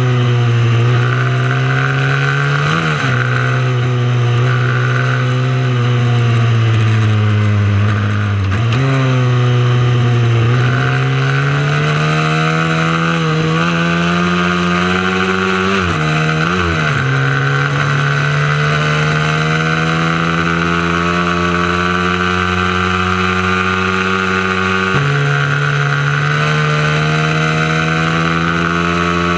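Small mini moto motorcycle engine running hard under load. Its note drops sharply and climbs back several times, then steps up suddenly near the end.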